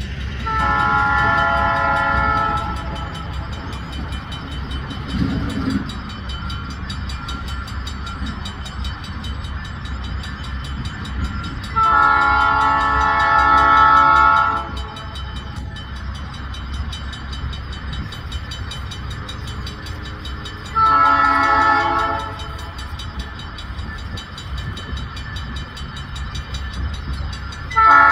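A Budd Rail Diesel Car's air horn sounding the grade-crossing signal as the railcar approaches. There is a long blast at the start, a second long blast about twelve seconds in, a short blast about twenty-one seconds in, and the final long blast starting right at the end, over a steady low rumble.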